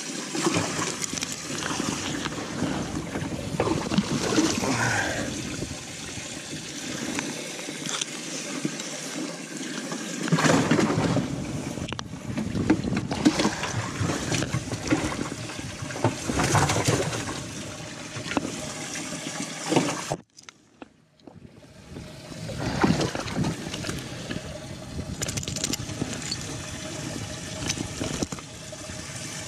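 Water splashing and gurgling with irregular knocks and rustles from handling; the sound drops out briefly about two-thirds of the way through.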